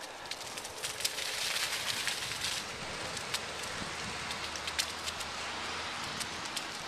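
Dry fallen leaves crackling and rustling under a rider moving over a leaf-covered trail, with many sharp little clicks; loudest between about one and three seconds in.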